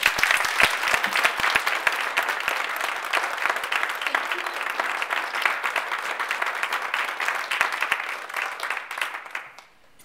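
Audience applauding: many hands clapping together, starting at once, holding steady, then dying away near the end.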